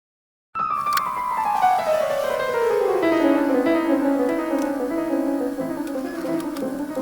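Background music begins about half a second in with a run of notes falling in pitch, then settles into held notes.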